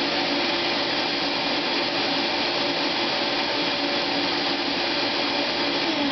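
16-gallon 6.5-horsepower Shop-Vac wet/dry vacuum running steadily: a motor whine over a rush of air. Its pitch starts to drop at the very end as it begins to wind down.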